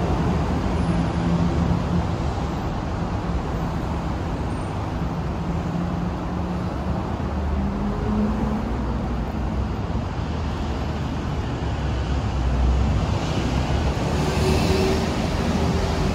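City street traffic: cars running by in a steady low rumble, with a louder hiss of a car passing closer about three-quarters of the way through.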